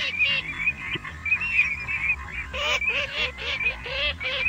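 A flock of ducks calling: many short, rising-and-falling calls overlapping one another, with a lower run of honking calls joining about halfway through.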